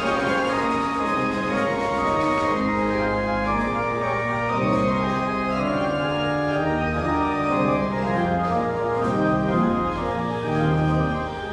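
Church pipe organ playing a classical solo piece: full held chords over a moving deep pedal bass, without a break.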